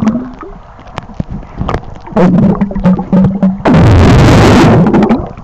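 Phone microphone held under pool water: muffled knocks and clicks with a low hum. About four seconds in comes a loud rush of churning water lasting about a second.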